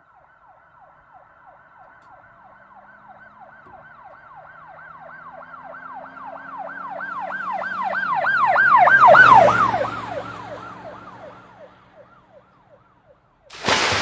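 Emergency vehicle siren in a fast yelp, about three to four wails a second, with a low engine hum. It grows louder, peaks about two-thirds of the way through with the pitch dropping as it passes, then fades away. Near the end a sudden loud rushing noise cuts in.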